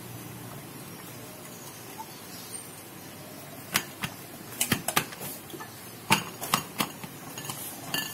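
Sharp clinks and taps, about ten in a few seconds, starting about four seconds in, as cooled cooking oil is poured into a glass bottle.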